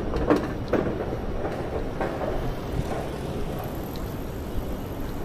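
Steady low rumble of passing vehicles, with a few sharp clicks in the first second and a faint thin high whine from past halfway.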